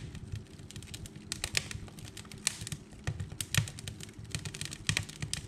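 Footsteps crunching in deep snow: a run of irregular crisp crunches over a low rumble.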